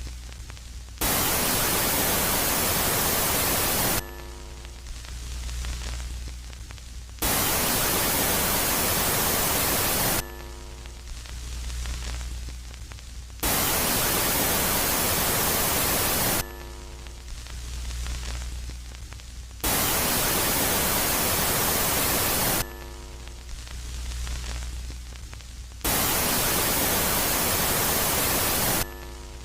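Space ambient track presented as the sound of Jupiter's moon Megaclite, alternating between a quiet and a loud phase. Loud bursts of static about three seconds long come five times, each followed by a quieter spell of steady low hum with faint tones, repeating about every six seconds.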